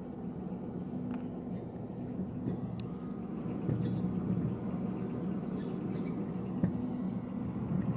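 A recording played back over the room's speakers: a steady low rumbling drone with several held tones, and a few faint short high chirps over it.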